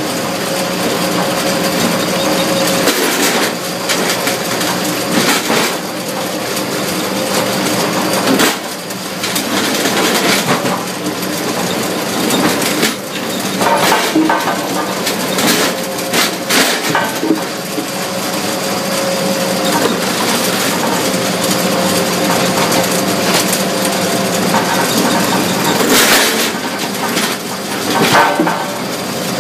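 Mobile Cambio 45 ring debarker running, with a steady mechanical drone under irregular knocking and clattering as logs pass through and bark is stripped off.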